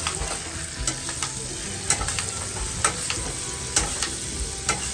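Butter and fat sizzling in a hot pan around a seared lamb shoulder steak as it is butter-basted. A metal spoon clicks against the pan about once a second.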